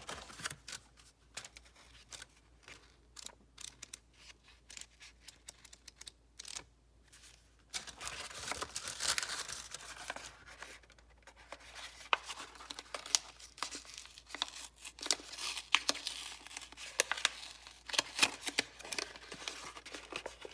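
Craft packaging being handled and opened: sparse light clicks and rustles at first, then from about eight seconds in a busier stretch of crinkling and tearing of paper or plastic wrap.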